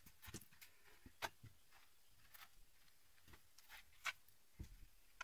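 Faint, scattered rustles and light knocks, several over a few seconds, as crumpled paper and debris are handled and pulled from a gap in a stone wall.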